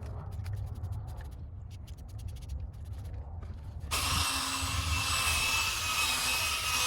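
Scraping and rubbing on a headlight lens, then about four seconds in a power drill starts and runs steadily, spinning a sanding pad on the plastic lens to take off the yellowed, fogged surface.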